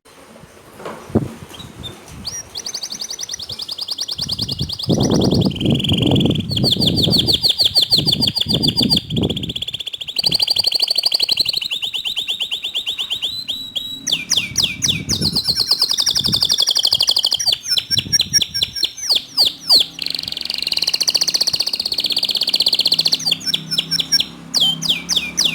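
Domestic canary singing a long, continuous song of fast trills and chirps, starting about a second in. This is the kind of loud, sustained song used as a master recording to set other canaries singing.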